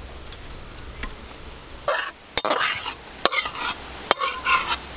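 Metal utensil scraping thick cooked mango pulp out of a metal pan onto a steel plate: several short rasping scrapes beginning about two seconds in, with three sharp knocks of metal on metal.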